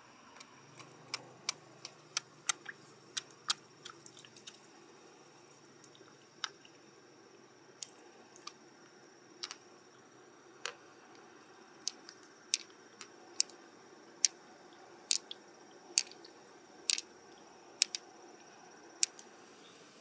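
Sharp, irregular clicks and taps from a pearl mussel being handled and opened: hard shell, tool and pearls knocking together, louder and more frequent in the second half. A faint steady high whine lies underneath.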